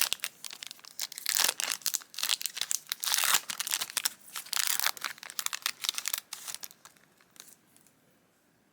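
Foil wrapper of a Yu-Gi-Oh booster pack crinkling and tearing as it is opened; the crackling stops about seven seconds in.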